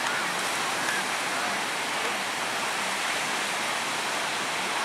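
Sea surf breaking and washing on the shore, a steady even rush of noise.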